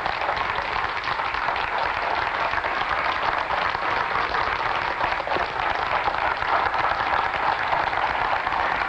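A crowd applauding steadily.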